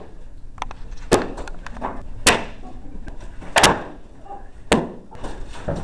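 Improvised swords whacking against box armor in a mock sword fight: four hard hits about a second apart, the loudest a double hit in the middle, with lighter knocks and scuffles between them.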